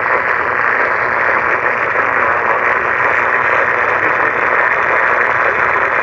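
Steady radio static: an even, unbroken hiss from a radio receiver with no voice or alert tones on the channel.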